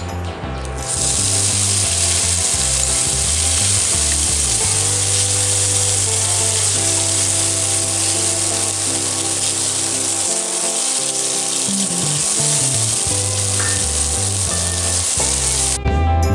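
Vegetarian minced meat sizzling as it fries in hot oil in a wok while being stir-fried. The sizzling starts about a second in and cuts off shortly before the end.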